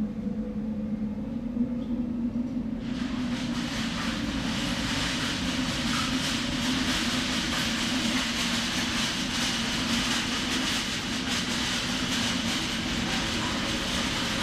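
A steady machine hum, joined about three seconds in by a sudden, loud, steady rush of air that keeps going.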